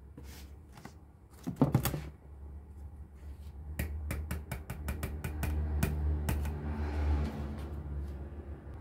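A quick run of light clicks and taps, about a dozen in a couple of seconds, over a steady low hum, with a single louder click about a second and a half in.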